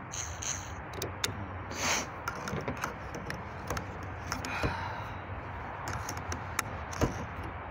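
Scattered light clicks and scrapes from handling an aluminium awning pole as a spring button clip is worked into place inside it, with a short rustle about two seconds in.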